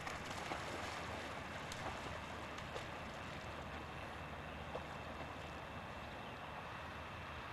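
A spaniel splashing into a pond and swimming, with a few short splashes in the first three seconds and one more near five seconds. Steady wind and camcorder hiss run underneath.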